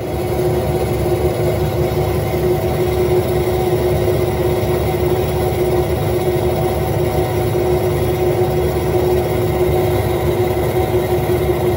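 Oil-cooled diamond-blade slab saw running with a steady hum, its power feed pushing a piece of jasper into the blade. This is the even, kind of loud sound of a normal cut, with no grinding from a broken-off piece.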